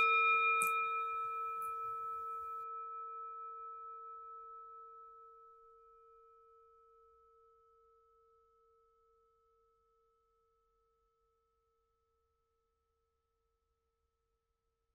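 A bell struck once, its main note ringing with a few higher overtones and fading away over about five seconds, the ring wavering slightly as it dies.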